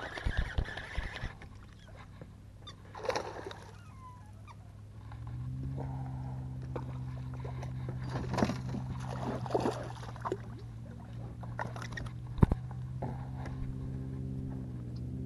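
A boat motor starts a steady low hum about five seconds in. Water splashes and a few sharp knocks come from handling at the boat's side.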